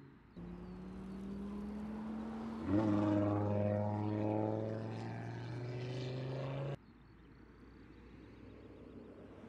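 Audi A3 clubsport quattro concept's turbocharged five-cylinder engine pulling hard on track, its note rising slowly. About three seconds in it gets louder with a deeper note added, then cuts off abruptly.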